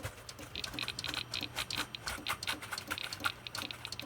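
Rapid, irregular clicking from an opened Compaq desktop computer, several clicks a second, over a steady low hum from the running machine.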